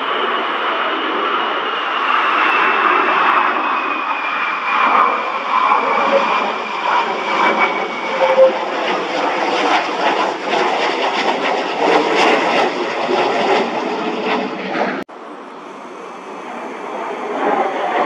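F-22 Raptor jet flying low overhead with its landing gear down, its twin turbofans making a loud, steady rush with a high whine that slides down in pitch as it passes. About fifteen seconds in the sound cuts abruptly to a quieter jet noise, a T-38 Talon, that swells as it approaches.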